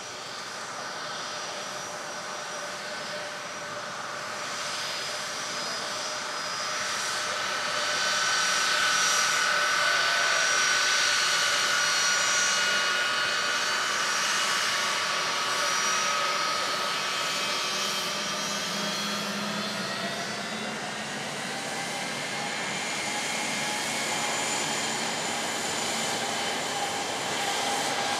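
Boeing 757-200 jet engines whining at taxi power as the airliner turns close by onto the runway. Several whining tones drift slowly in pitch over a rushing noise, and the sound grows louder about eight seconds in, eases, then swells again near the end.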